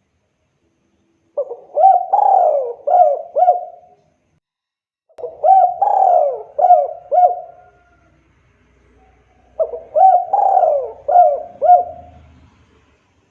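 Spotted dove (tekukur) cooing: three song phrases a few seconds apart, each a quick run of about five coos.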